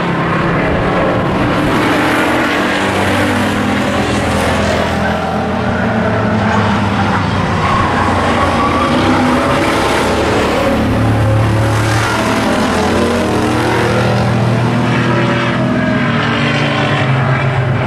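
Several hobby stock race cars' engines running hard on an oval track, their pitch rising and falling as the cars accelerate and pass by.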